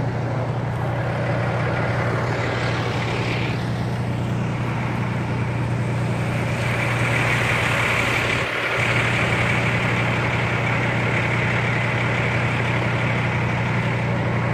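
Diesel fire engines idling: a steady low drone, with a higher hiss joining about halfway through.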